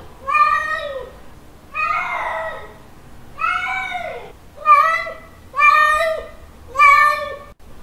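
Male cat's mating call: six meows about a second apart, each rising and then falling in pitch. The second call is longer and rougher, with a drawn-out falling end.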